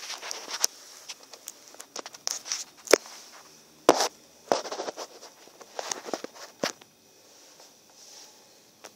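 Handling noise from a phone being moved and set in place: irregular knocks, taps and rubbing, with two louder knocks about three and four seconds in.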